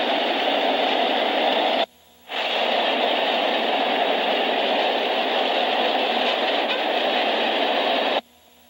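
Frisco freight train cars rolling past, a steady noisy rumble heard through a thin, hissy 1970s film sound track. The sound cuts out abruptly twice for about half a second, once about two seconds in and once near the end.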